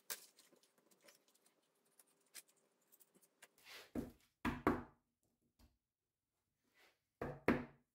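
Faint rustle of sandpaper squares being handled, then two pairs of sharp knocks, about four seconds in and again near the end: a stack of sandpaper squares tapped down on the workbench to line up its edges.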